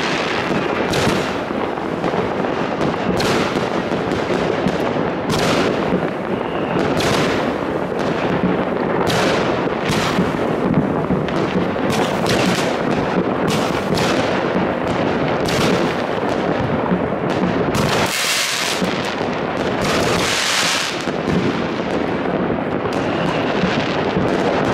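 Firework battery (cake) firing a long sequence of shots: a bang roughly every second, each bursting into stars, over a steady crackling hiss.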